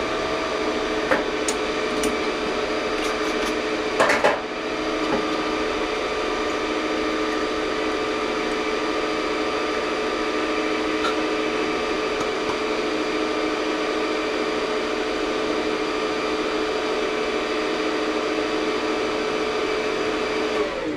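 A shop machine tool's motor running steadily as it works the inside of an aluminium flashlight tube, with a few clicks and a knock about four seconds in. The motor is switched off right at the end and winds down.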